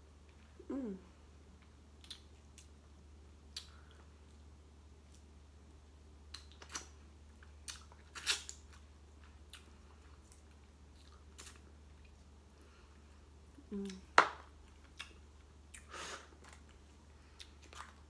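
Close-up eating sounds: chewing, with scattered sharp clicks and taps from a plastic fork in a foil tray of seafood rice and crab. The loudest click comes about three-quarters of the way through.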